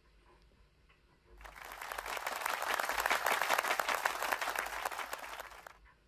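Applause, a dense patter of many hands clapping, swelling in about a second and a half in and fading out just before the end.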